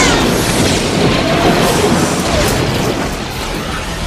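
Dense booms and crackle of explosions, with music underneath; the din eases off a little towards the end.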